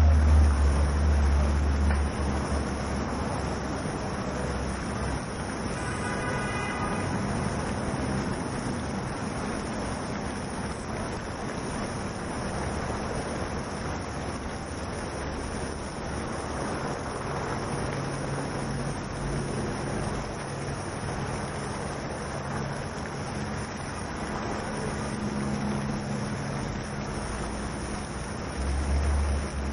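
Steady rush of a plaza fountain streaming into its pool, mixed with city traffic noise. A low rumble comes at the start and again near the end, with a brief pitched tone about six seconds in.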